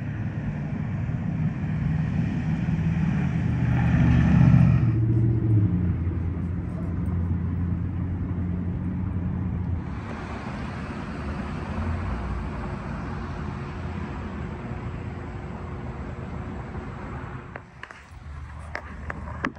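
Outdoor road-traffic noise: a vehicle passes close by, its low engine rumble swelling about four seconds in and fading, followed by a steady hiss of wind and distant traffic.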